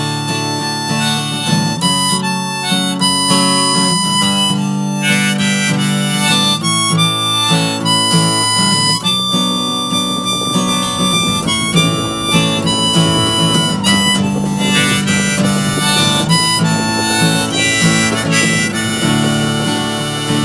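Instrumental break of a country-folk song: a harmonica playing a melody over acoustic guitar.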